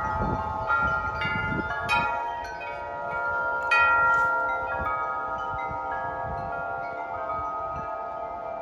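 Several wind chimes ringing in gusty wind, many overlapping tuned tones with new strikes every second or so, the strongest about two seconds in and again near four seconds, then ringing on and fading slowly. Some low wind rumble on the microphone at the start.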